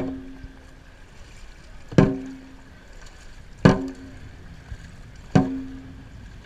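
A dragon boat drum struck four times, about one beat every 1.7 seconds, each hit ringing briefly. It keeps the stroke for the paddlers.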